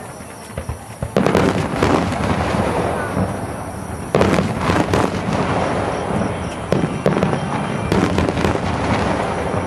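Fireworks display: aerial shells go off with a loud bang about a second in, again near four seconds and again near eight. Each bang is followed by a long, dense crackling.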